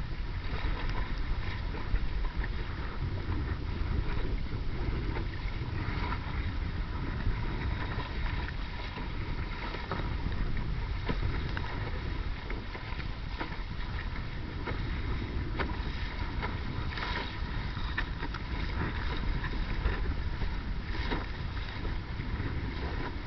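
Wind buffeting the microphone over water splashing and rushing along the hull of a small boat moving through choppy water, with a few short splashes standing out.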